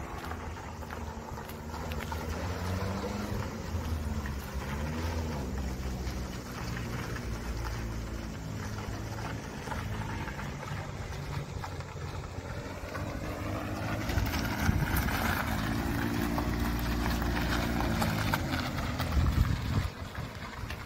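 Subaru Sambar mini truck's small engine driving around, its pitch rising and falling as it speeds up and slows, loudest and highest a little past the middle before dropping away near the end.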